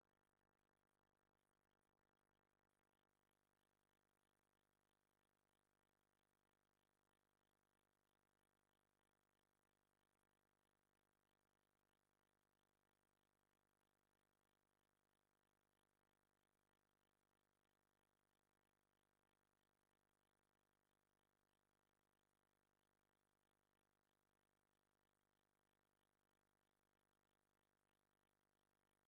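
Near silence: only a faint steady noise floor, with no distinct sounds.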